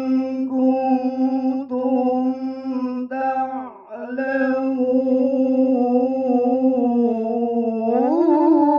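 A male qari recites the Quran in the melodic tilawah style into a handheld microphone, holding long drawn-out notes with wavering ornaments. There is a short break for breath about four seconds in, and the pitch climbs near the end.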